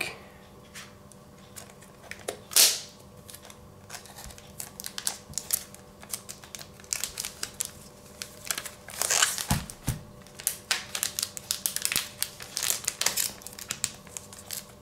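Plastic protective film on a tablet crinkling and crackling as hands handle it and start peeling it off, in scattered crackles that grow denser in the second half. One louder crackle comes about two and a half seconds in, and a couple of dull thumps about two-thirds of the way through.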